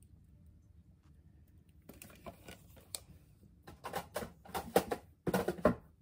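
Handling noise close to the microphone: a run of quick clicks, taps and rubbing strokes starting about two seconds in, growing louder and busier toward the end, then stopping suddenly.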